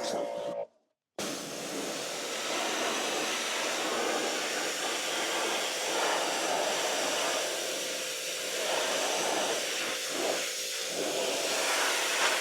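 Pressure-washer water jet from a 15-degree nozzle spraying with a steady hiss. It cuts out for about half a second near the start, then resumes.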